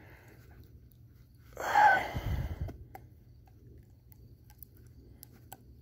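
A person lets out one loud, breathy exhale or sigh about two seconds in. Faint small clicks and rustles come from a hook being worked out of a carp's mouth by hand.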